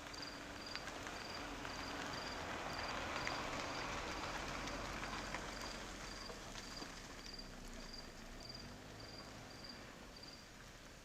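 An insect chirping steadily and high-pitched, about two pulses a second, over a campfire with occasional sharp crackles. A broad rush of noise swells and fades in the middle, loudest about three to four seconds in.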